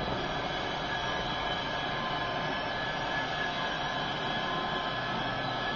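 Idling diesel engine sounds from the DCC sound decoders of OO gauge model locomotives, played through their small speakers: a steady hum with a few held tones over a hiss.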